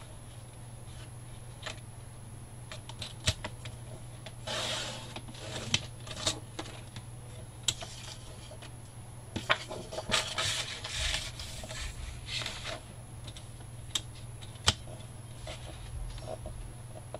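Sheet of scrapbook paper being handled and slid across a Fiskars paper trimmer: rustling and scraping in two longer stretches, with scattered sharp clicks and taps, over a steady low hum.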